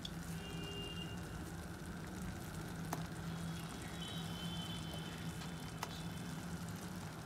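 Thick tomato-butter gravy simmering in a pan: a faint steady crackle with a couple of soft pops, about three and six seconds in, over a low steady hum.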